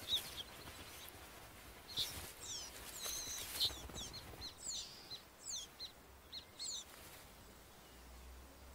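Songbirds chirping: a run of short, quick high whistled notes, some sliding up or down in pitch, that stops about seven seconds in.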